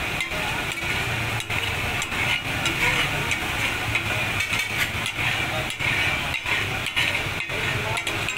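Metal spatulas chopping, clacking and scraping on a large flat iron tawa as mutton taka tak is worked, with the meat sizzling in hot oil.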